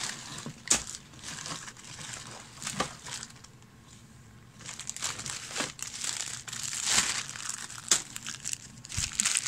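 Clear plastic bags of plastic miniatures crinkling and rustling as they are handled and lifted out of a box, with a few sharp clicks. It goes quieter for about a second around the middle.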